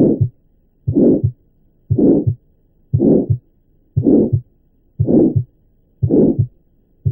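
Recorded heart auscultation in tetralogy of Fallot: a systolic murmur from blood crossing the narrowed pulmonary outflow with each beat, each followed by a short, distinct second heart sound of aortic origin, about one beat a second.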